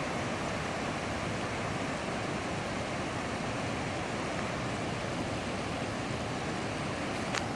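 Steady rush of the flooding Big Thompson River, swollen water pouring over the top of its bank, with a small click near the end.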